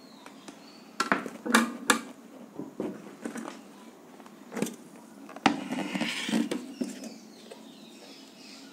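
A ceramic plate and a metal cake tin knocking and clinking as the plate is laid over the tin and the tin is turned upside down onto it to release the cake, with about seven separate knocks and a short scrape.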